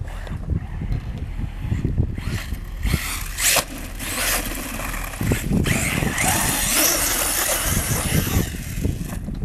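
Kyosho Inferno RC buggy with a TP-Power 4050 2200kv brushless motor on 6S, driving through sand on paddle tires. The motor's whine rises and falls with throttle, mixed with the hiss of sprayed sand.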